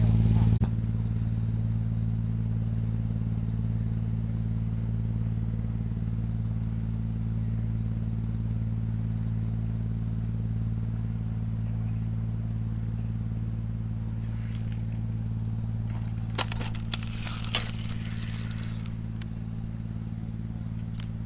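A narrowboat's engine running steadily, a constant low hum. A few brief scratchy clicks come about three-quarters of the way through.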